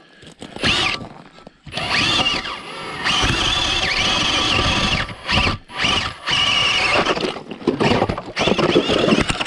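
Battery-powered electric ice auger reopening an old hole in the ice: the motor whines in several bursts of about one to two seconds, its pitch dipping as the blades bite and rising again as they free up.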